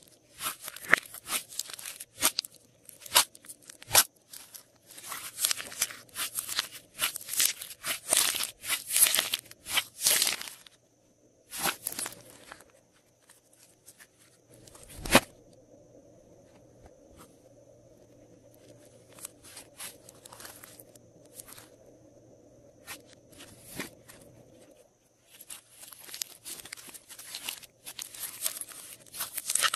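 Hands squishing, stretching and folding glossy slime: quick wet clicks and crackling pops from trapped air, coming in dense flurries. A quieter stretch in the middle is broken by one loud sharp pop about halfway through.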